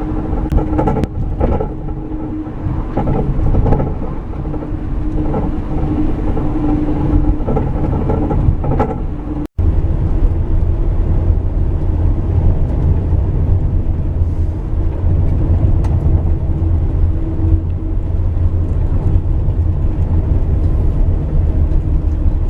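Vehicle running, heard in two clips cut together about ten seconds in; the second is a steady low drone.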